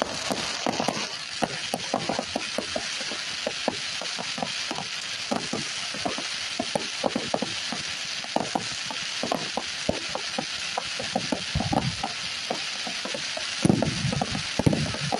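Fireworks firing: a rapid, uneven barrage of pops and bangs over a continuous crackling hiss. Near the end come a few heavier, deeper booms.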